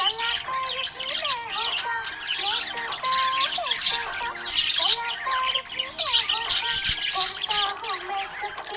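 Budgerigars chirping and squawking in a rapid, continuous chatter.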